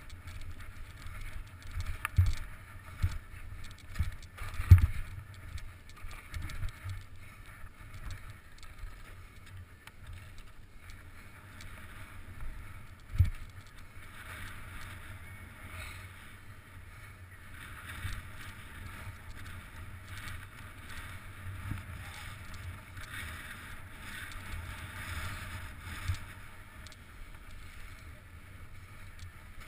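Skis or board sliding down a snowy run, heard as a rushing hiss with wind buffeting the microphone, and sharp thumps as it rides over bumps, several in the first five seconds and a strong one about thirteen seconds in.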